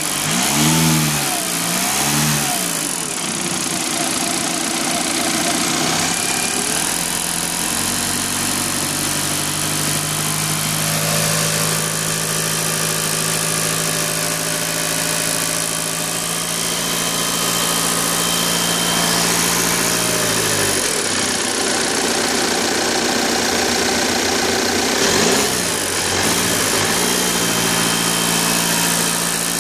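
Audi A6 2.0 TDI four-cylinder common-rail diesel engine being revved: a few quick blips near the start, then held at raised speed for about thirteen seconds before dropping back, with two more blips near the end and idling in between. The owner hears a distinct metallic knock from the area of the common-rail fuel rail while it runs, and an odd-running alternator.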